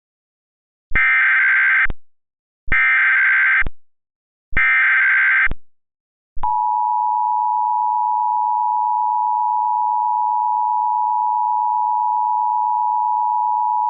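Emergency Alert System tones opening a tornado warning: three one-second bursts of SAME digital header data, a little under a second apart. About six seconds in, the steady two-tone EAS attention signal (853 and 960 Hz) begins and holds.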